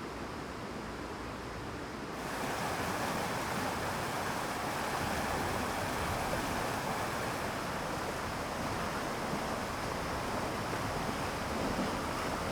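Rushing water of a mountain stream, a steady hiss that gets louder and brighter about two seconds in.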